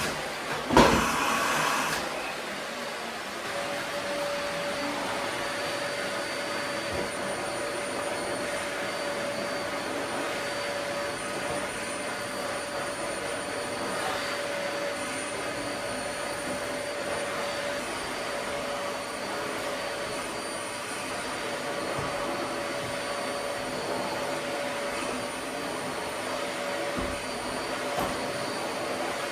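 Vacuum cleaner running steadily with a steady whine. There is a sharp knock just under a second in.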